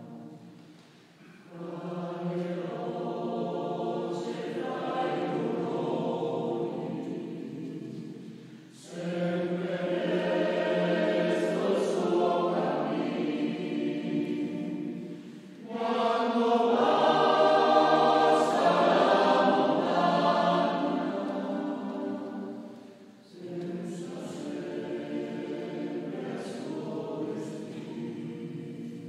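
Choir singing in long phrases with short breaks between them; the loudest phrase comes a little past the middle, then the singing eases back.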